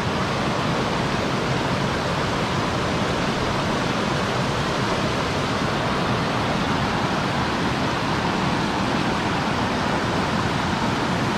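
Water rushing steadily over a low spillway and between boulders into a shallow channel.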